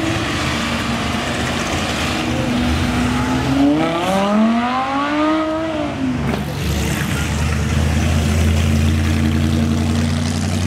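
Sports car engines passing at low speed. One engine revs up in a rising note about three and a half seconds in and falls away near six seconds, then a deeper, steady engine rumble takes over.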